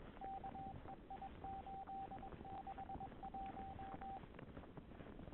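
A single mid-pitched electronic beep tone keyed on and off in short and long beeps, like Morse code, for about four seconds, over faint background noise.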